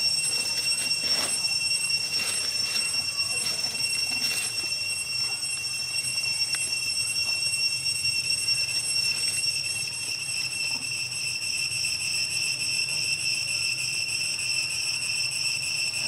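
Steady, high-pitched insect drone holding one tone with overtones, growing stronger in the second half, with a few faint clicks and rustles in the first few seconds.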